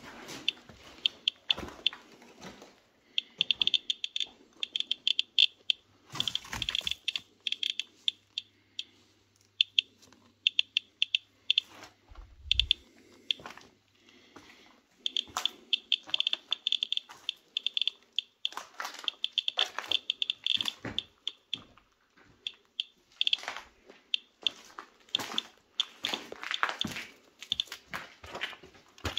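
Handheld radiation dosimeter chirping with quick, irregular clicks, each one a detected particle, that come in dense runs. Footsteps crunch over rubble and debris in between.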